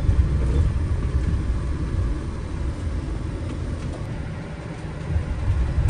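Low, uneven rumble of a cargo van driving on the road.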